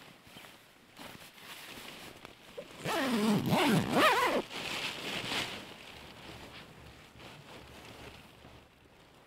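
Sleeping-bag zipper being pulled closed, its rasp rising and falling in pitch with the speed of the pull, loudest about three to four and a half seconds in, with quieter rustling of the bag after.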